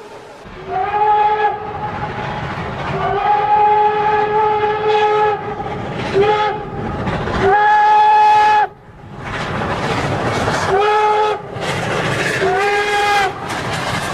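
Train whistle blown in six blasts of mixed length over the rumble of the moving train. Each blast swoops up in pitch as it starts. The longest lasts about two seconds, and the loudest comes about two-thirds of the way through.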